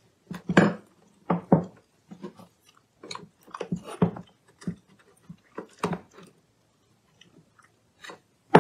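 A flat screwdriver clicking and scraping against the small metal parts of a battery chainsaw's chain-tension mechanism as they are pried loose: a string of irregular short clicks and knocks, with a sharper, louder click at the very end.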